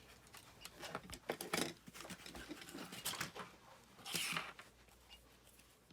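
Scattered light clicks, taps and rustles of small handling, with a short hissing rush about four seconds in.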